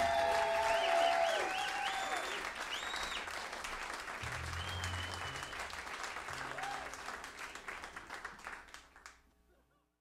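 Audience applauding, with a few whistles and shouts in the first few seconds, fading away and cutting to silence about nine seconds in.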